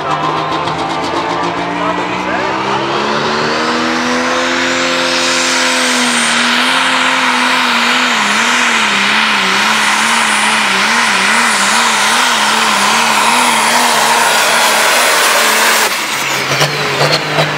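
Prostock pulling tractor's turbocharged diesel at full throttle hauling the weight sled. The engine note climbs over the first few seconds together with a high, rising turbo whine that then holds. The engine pitch then wavers up and down as the tractor strains down the track. Near the end the sound jumps to a lower, steadier engine note.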